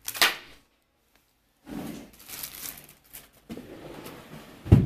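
Plastic candy wrapper of an M&Ms pack crinkling as it is handled, in uneven stretches, with a dull thump near the end.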